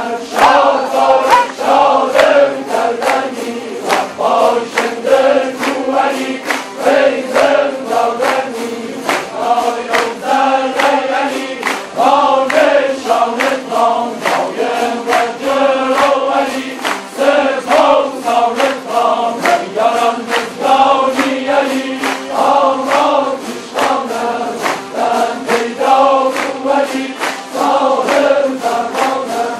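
Large ensemble of Kurdish tanburs, long-necked lutes, strummed together in a steady, even rhythm, with many men's voices chanting along in unison.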